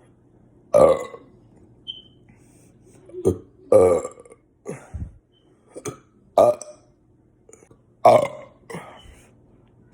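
A person burping repeatedly: four loud burps, each about half a second long and spaced two to three seconds apart, with smaller burps in between. A faint steady low hum runs underneath.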